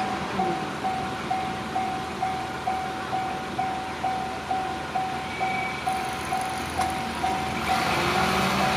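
Japanese railway level crossing alarm ringing steadily, a single bell tone repeated about twice a second, while a train's running noise swells louder near the end.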